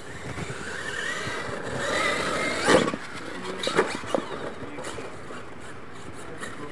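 RC monster truck's motor whining and rising in pitch as it accelerates across dirt, then a sharp knock of the truck hitting the ground about three seconds in, followed by a few smaller knocks.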